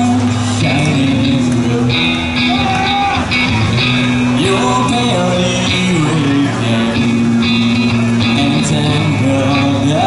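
Live rock band playing loud and steady: electric guitars, bass and drums with a male lead singer.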